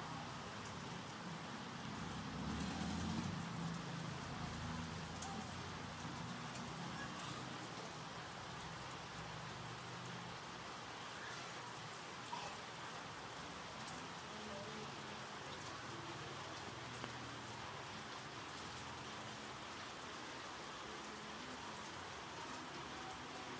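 Steady crackling sizzle of hot oil deep-frying at a banana-fritter stall, with a faint low murmur of market background under it.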